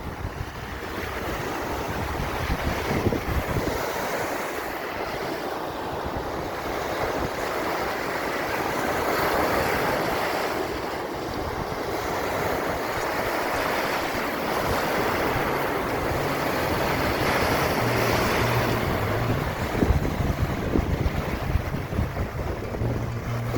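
Waves rolling in and breaking on a sandy beach: a continuous wash of surf that swells louder a few times. Wind buffets the phone's microphone.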